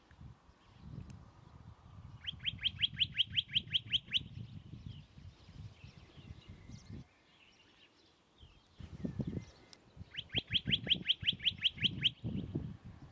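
Western rock nuthatch singing: two trills of about two seconds each, made of quick repeated notes at about five or six a second. The first starts about two seconds in and the second comes near the end, over a low rumble.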